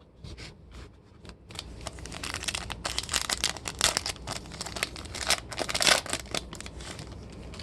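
A Topps Chrome trading-card pack wrapper being torn open and crinkled by hand, a dense run of irregular crackles that trails off near the end.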